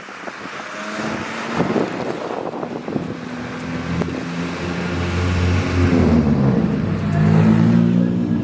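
A custom car's engine getting louder as the car drives out and approaches, its pitch shifting as it goes, with wind buffeting the microphone.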